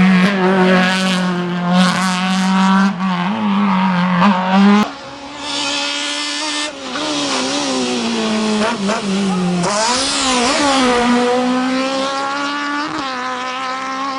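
Fiat 127 race car's four-cylinder engine running hard, its pitch rising and falling with the throttle. The sound breaks off abruptly twice, about 5 and 10 seconds in, and picks up again at a different pitch.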